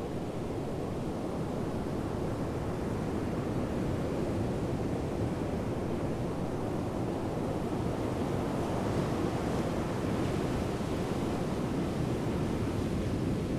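Strong sandstorm wind blowing across the microphone, a steady rushing noise that grows a little louder over the first few seconds.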